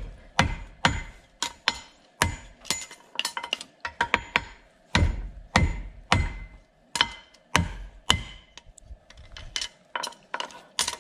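Hammer blows on a steel horseshoe held in tongs on an anvil, about two a second, each with a short metallic ring. The blows turn lighter near the end.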